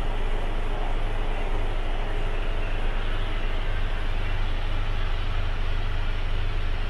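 Mercedes Actros 2545 tractor unit's 450 bhp turbocharged diesel engine idling, a steady low drone heard from inside the cab.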